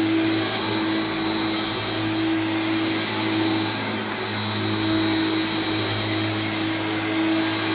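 Hoover Turbopower 2 U2090 upright vacuum cleaner with a 900-watt motor, running steadily with a constant high whine over the rush of air. A lower hum swells and fades every second or so.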